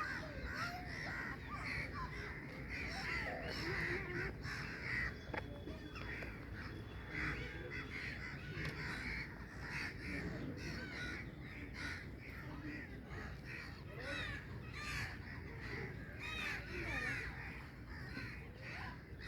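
A flock of birds calling continuously, with many short rising-and-falling calls overlapping without a break.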